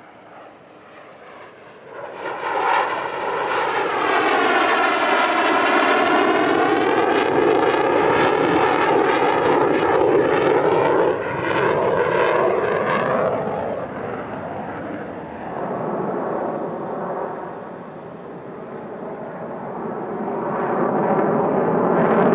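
Dassault Mirage 2000-9 fighter jet flying past. Its engine noise swells about two seconds in and sweeps in pitch as it passes, with crackle mixed in, then fades after about fourteen seconds. Near the end another jet's noise builds again.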